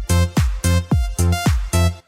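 Electronic dance background music with a steady, punchy kick-drum beat, about four beats a second, and synth chords over it.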